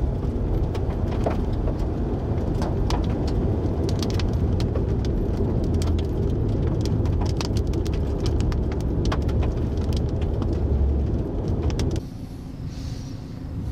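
Strong wind buffeting the microphone: a heavy low rumble with scattered crackles and clicks. Near the end it cuts to a quieter stretch with a faint steady hum.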